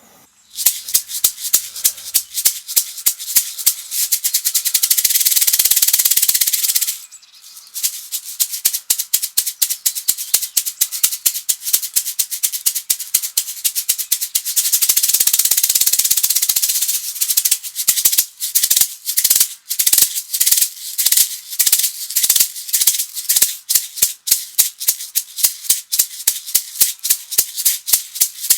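Buffalo-skin shaman rattle filled with glass seed beads and crystal chips, shaken in a steady beat of sharp, bright shakes. Twice it switches to a continuous fast shake for a couple of seconds, about five seconds in and again about fifteen seconds in.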